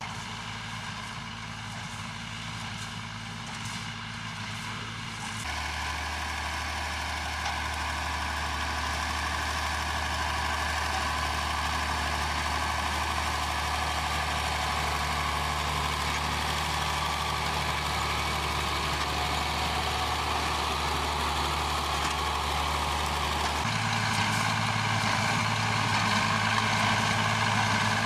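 Diesel engines running steadily, switching abruptly twice. First a Scania lorry, then from about five seconds in an old tractor pulling a bale-loading wagon, then near the end a tractor with a bale collector.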